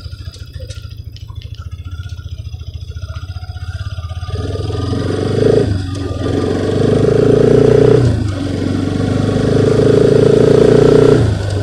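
Motorcycle engine running while riding, with a rapid low firing pulse. About four seconds in it picks up and grows louder as the bike speeds up, dipping briefly twice before carrying on.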